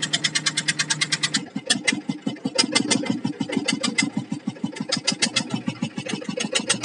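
Boat engine running with a rapid, even chugging of about ten beats a second; its note changes about a second and a half in.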